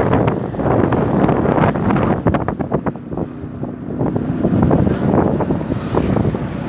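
Wind buffeting the microphone of a camera riding on a moving vehicle, gusting unevenly, over the low rumble of the ride along the road.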